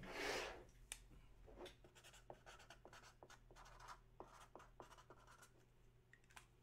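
A clear hard-plastic display case sliding briefly across a wooden tabletop, then faint, scattered small clicks from handling.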